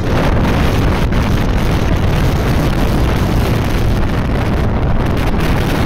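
Wind buffeting the microphone of a phone carried on a moving motorcycle: a loud, steady, deep rush.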